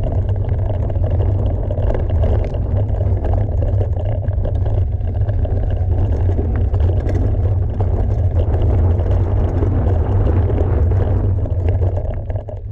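Wind rushing over the microphone with trail rumble from a mountain bike riding fast downhill.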